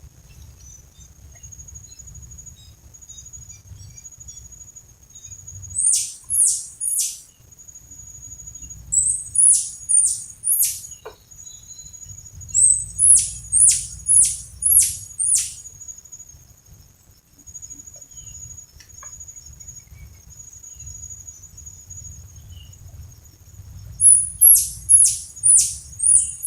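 Squirrel calls: sharp, high chirps, each dropping steeply in pitch, in bursts of three to five, repeated four times with pauses between. A faint steady high whine runs underneath.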